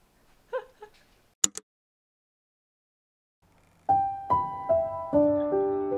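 Soft solo piano music begins about four seconds in, with single notes struck in turn and ringing out over lower chords. Before it come a brief faint vocal sound, a sharp click and a couple of seconds of dead silence.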